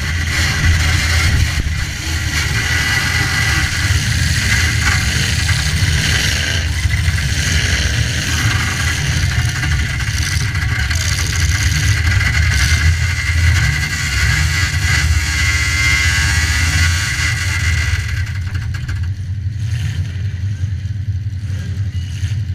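Demolition derby car engines running loud, with a steady low drone and revving. The higher noise drops away about eighteen seconds in while the low engine sound carries on.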